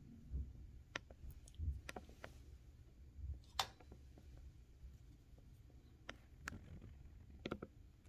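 Scattered light clicks and soft knocks from a 1976 Smith Corona Super-G manual typewriter being handled, about half a dozen in all, the sharpest about three and a half seconds in.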